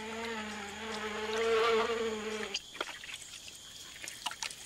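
A flying insect buzzing close by in a steady, slightly wavering hum that cuts off suddenly about two and a half seconds in. After it stops, only faint scattered clicks and soft wet sounds remain.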